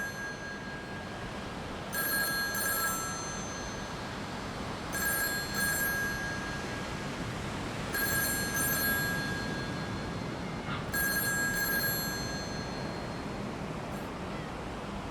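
A telephone ringing: four rings about three seconds apart, each a short run of high pulsing tones, over a steady hiss.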